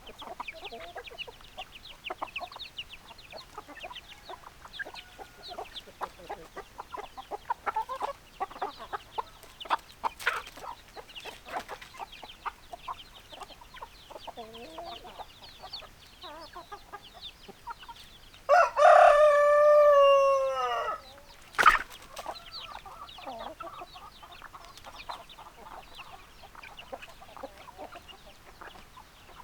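Backyard chickens clucking in many short calls, with one loud rooster crow of about two and a half seconds, falling in pitch at its end, about two-thirds of the way through. A sharp click follows shortly after the crow.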